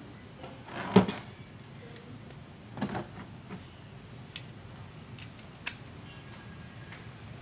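Hard plastic clicks and clacks of an 18 V cordless-tool battery pack being handled and fitted to its charger: one sharp clack about a second in, another near three seconds, then a few light ticks.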